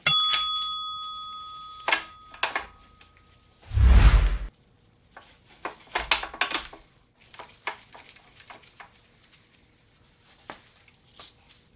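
A sharp metallic clank of steel spring compressors against a strut's coil spring, ringing on for about a second and a half. A dull thump follows about four seconds in, then light scattered clicks of metal parts being handled.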